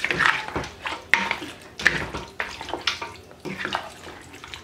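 A black spoon stirring thick oxtail and butter bean stew in a stainless steel pot: wet stirring with the spoon scraping and knocking against the pot in irregular strokes.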